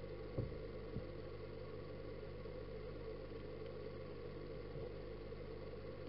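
Steady electric hum of an aquarium filter pump, heard underwater through the camera's waterproof case, with two short knocks about half a second and a second in.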